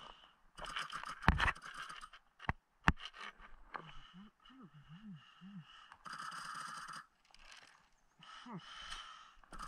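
A few sharp knocks of a nail ring and other metal finds dropping into a hard plastic basket floating on the water, with water sloshing and gurgling around it.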